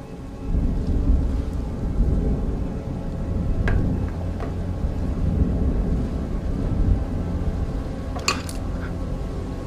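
Low rolling rumble of thunder that swells about half a second in and carries on, with a few sharp clicks or knocks, two of them close together near the end.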